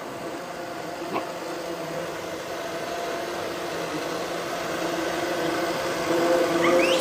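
Electric blender running steadily, whirring flowers and milk into a smoothie, growing gradually louder. A brief high rising squeal near the end.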